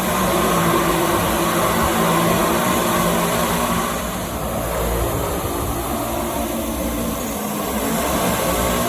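Drone flying, its motors and propellers making a steady buzzing hum with several held pitches over a rushing hiss. It dips slightly in loudness about four seconds in, then picks up again.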